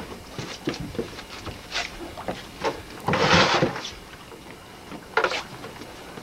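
Scattered knocks and bumps of gear being handled on a fishing boat's deck, with a louder rushing noise lasting under a second about three seconds in and a shorter one a little after five seconds.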